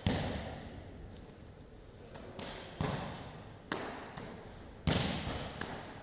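Medicine ball wall balls: the ball thuds against the wall target and slaps back into the hands on each rep. Five sharp thuds in about five seconds, the loudest at the start and again about five seconds in.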